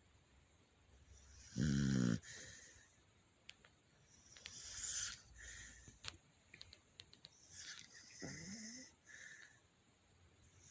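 Sleeping dog snoring: slow breaths about three seconds apart, with a loud pitched snore about two seconds in and another snore near the end that rises in pitch.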